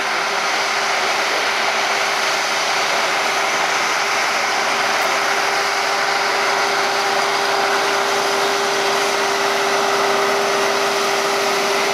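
Farm tractor running steadily while pulling a granular fertilizer spreader across a field, a steady hum riding over a constant rushing noise.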